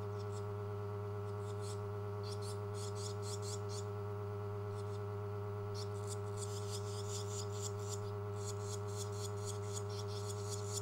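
Barn swallow nestlings giving rapid, high-pitched begging twitters in repeated bursts, strongest from about six seconds in. A steady low electrical hum runs underneath.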